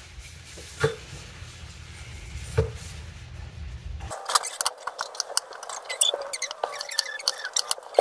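Kitchen knife slicing tomatoes on a wooden cutting board: a couple of sharp knocks of the blade on the board, then a quicker run of small clicks and taps in the second half. A low background hum cuts off about four seconds in.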